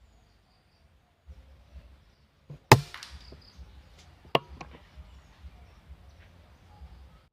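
Air rifle firing once with a sharp, loud crack and a short ring-out, followed about a second and a half later by a second, quieter sharp click.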